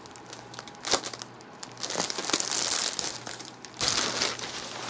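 White plastic poly mailer bag crinkling and rustling as it is pulled open by hand, with a couple of sharp snaps of the plastic.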